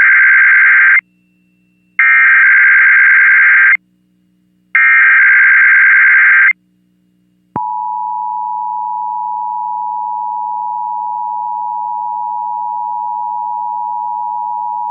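Emergency Alert System SAME header: three bursts of shrill digital data tones, each about a second and a half to two seconds long with a second's gap between. About seven and a half seconds in, the EAS two-tone attention signal starts, two steady tones sounding together without a break.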